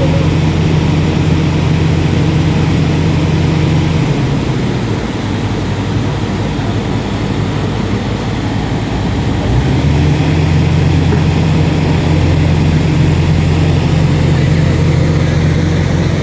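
A small engine running steadily. It eases off about four seconds in and picks up again near ten seconds.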